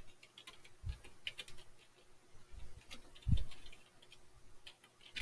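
Computer keyboard typing: a run of short, irregular key clicks, with a low thump about a second in and a louder one about three seconds in.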